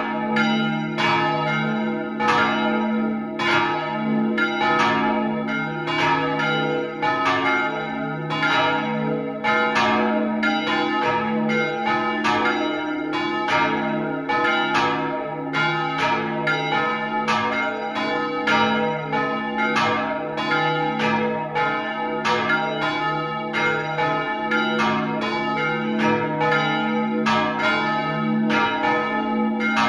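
Three swinging church bells ringing together in overlapping strokes, several a second, over a steady lingering hum: a large bell cast in 1489 (D-sharp), a middle bell recast in 1900 (G-sharp) and a small bell from the early 1200s (F). They are heard close up inside the belfry, with the tower's louvres shut.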